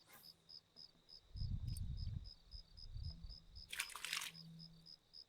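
Insects, likely crickets, chirping steadily with a high, even pulse several times a second. A brief low rumble comes about one and a half seconds in, and a short hissing rustle near four seconds.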